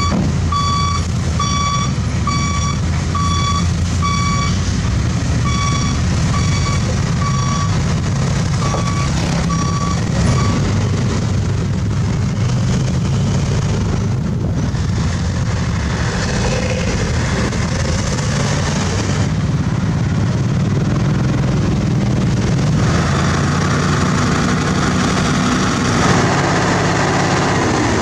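Heavy diesel engine of a self-loader transport truck running steadily, with a reversing alarm beeping about once every two-thirds of a second. The beeping stops about ten seconds in while the engine keeps running.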